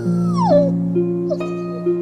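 Gentle background music of plucked, harp-like notes, with one short falling whine from an animal about half a second in.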